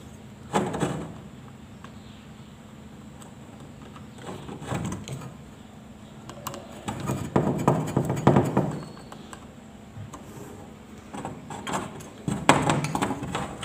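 Handling noises from wiring a metal recessed downlight: a screwdriver working the terminal-block screws and the fitting being handled, in several short bouts of scraping and clatter. The longest bout comes in the middle, with two more near the end.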